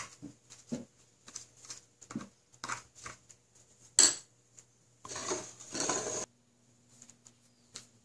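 Paintbrush clinking and scraping against a small paint bowl while painting a papier-mâché volcano: a string of light clicks, a sharp clink about four seconds in, and a scraping stretch that cuts off suddenly about six seconds in.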